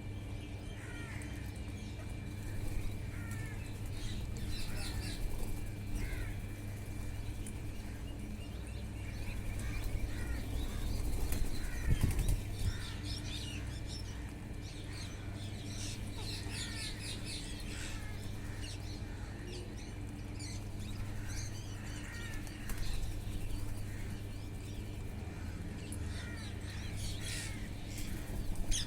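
Wild parrots giving short, repeated chirping and squawking calls, with wings flapping, and a louder flurry about twelve seconds in.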